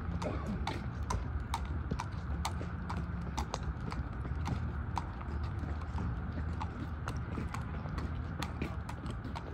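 Hooves of a dapple gray mare striking the ground as she is ridden: a steady run of sharp clip-clop strikes, about three a second, over a low steady rumble.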